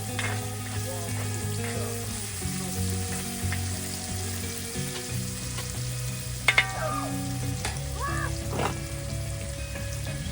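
Food frying in a pan with a steady sizzle, and a few sharp clicks of a utensil against the pan about six and a half and eight and a half seconds in. Soft background music plays under it.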